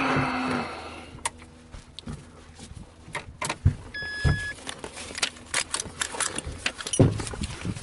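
Clicks and knocks of hands handling gear and fittings in an Astir glider's cockpit, with a burst of hiss in the first second and a short electronic beep about four seconds in.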